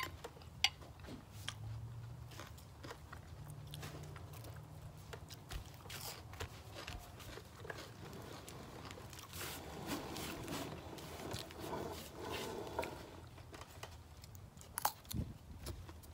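Wet chewing and mouth clicks of someone eating raw salmon salad, then crisp crunching bites of a fresh cucumber toward the end.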